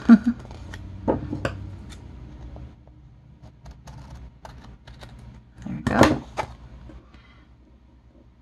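Scissors snipping through a strip of paper planner stickers: a few sharp snips in the first two seconds, then lighter ticks of handling, and one louder clack about six seconds in.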